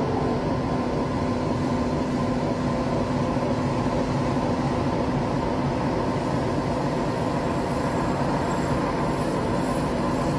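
Dark ambient music: a steady, dense rumbling drone with a few held low tones, no beat and no change in level.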